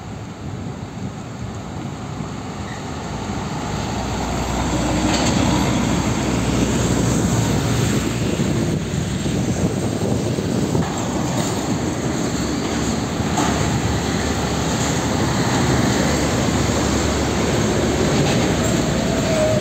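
Heavy container trucks passing close by: diesel engines running and tyres on the road, with the rattle and clank of the container trailers. It grows louder about four seconds in and stays loud.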